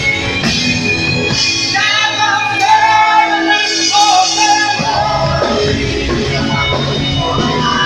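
Live praise choir singing a medley through microphones with a band, a woman's amplified voice leading. The bass drops out about two seconds in and comes back about five seconds in.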